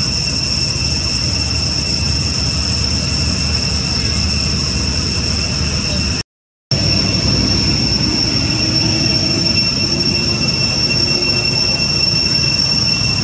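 Steady background noise: a continuous high-pitched whine over a low rumble, broken by a half-second dropout about six seconds in.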